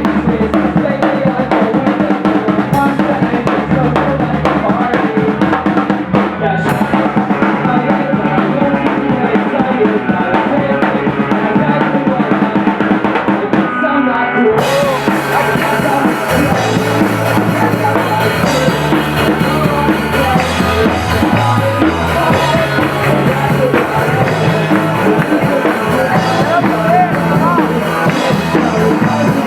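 Live rock band playing a song, led by a drum kit with kick and snare under a steady bass line. About halfway through the sound gets suddenly fuller and brighter as the whole band comes in harder.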